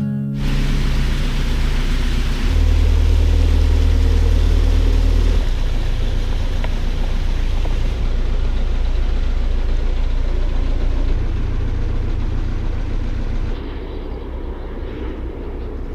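Narrowboat's diesel engine running with a low, evenly pulsing rumble; it grows louder about two and a half seconds in and drops back about three seconds later.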